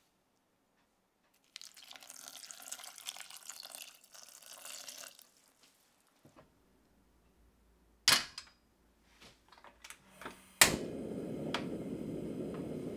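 Water pouring into a saucepan of sliced strawberries for a few seconds. A sharp knock follows a few seconds later. Near the end a portable gas stove's burner clicks alight and then burns with a steady rush of flame.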